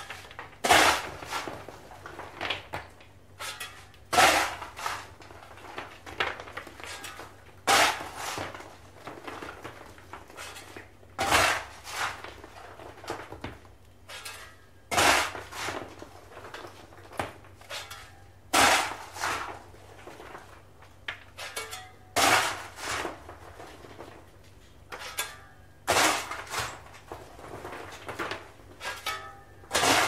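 Stoker shovelling coal into a paddle steamer's boiler firebox: a loud metal shovel stroke with a short scrape about every three and a half seconds, each followed by a few lighter knocks and clatters. A steady low machinery hum runs underneath.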